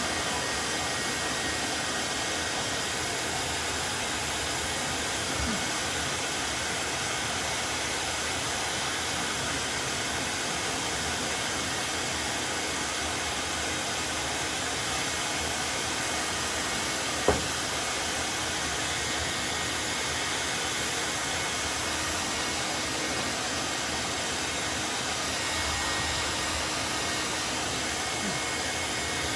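Hair dryer running steadily, with one sharp click a little over halfway through.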